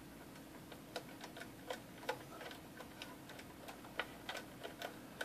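Faint, irregular small clicks and ticks of a meter's test clip being worked among capacitor leads and wiring inside a metal instrument chassis, fishing for a hard-to-reach lead.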